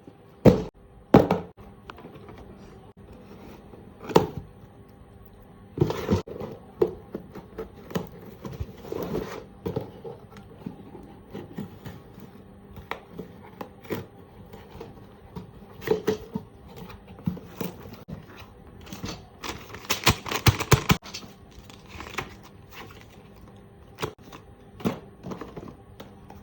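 Hands opening a delivery parcel and handling the products inside, making scattered knocks, taps and thuds, with a longer stretch of packaging rustle about twenty seconds in.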